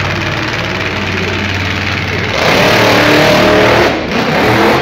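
Monster truck engine running steadily, then revving hard and loud from about two seconds in as the truck drives at the ramp. The engine drops briefly near the end before picking up again.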